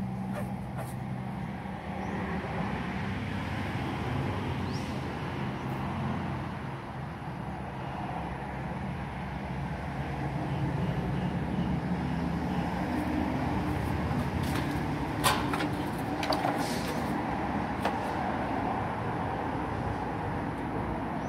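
An engine running with a steady low hum that shifts slightly in pitch. A sharp knock about fifteen seconds in, with a few lighter clicks just after.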